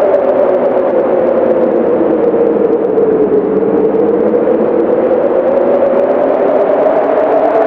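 Howling wind: a steady rush with a moaning tone that slowly sinks in pitch and rises again.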